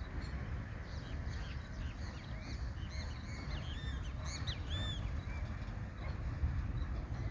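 Birds calling: a flurry of short, arched, squawky calls from about a second in until about five and a half seconds in, over a steady low rumble.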